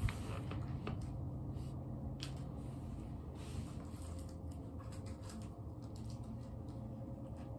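Faint rustling and scattered small clicks of a person moving about close to the recording phone, over a low steady hum. There is a sharp knock at the very start.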